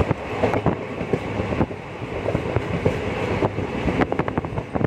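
Passenger train running along the track, heard from inside the moving coach: a steady rumble with irregular knocks from the wheels and rails, and a quick run of clicks near the end.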